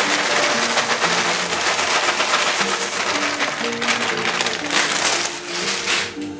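Dry Boo Berry cereal and marshmallow bits pouring from a plastic bag onto the grain in a stainless-steel mash tun: a steady, dense rattle that stops near the end. Background music with short held notes plays throughout.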